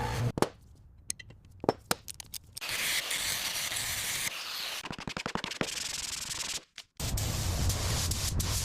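Car-restoration workshop noises in quick succession: scattered clicks and taps, a stretch of rasping sanding-like rubbing, more rapid clicking, then after a brief break a steady low hum with hiss.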